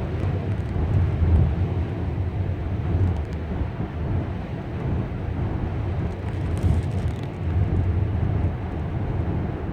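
Low, uneven rumble from a 2015 Chrysler Town and Country minivan, swelling and easing a little at times: the recurring weird noise that several dealer visits have not cured.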